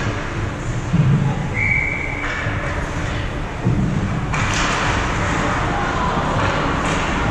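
Ice hockey game sounds in a large rink: a dull thump about a second in and another near the middle, with a short, steady high whistle-like tone between them. From a little past halfway a steady hiss of noise takes over.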